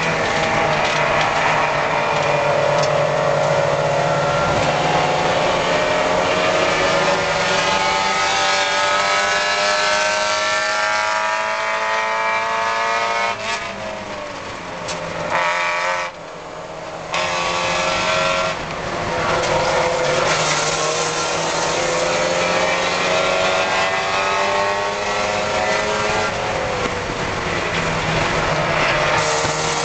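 Spec Miata race car's four-cylinder engine under hard racing load, heard from inside the car. The pitch climbs steadily, falls and briefly quietens about halfway through, then climbs again, with a shift near the end.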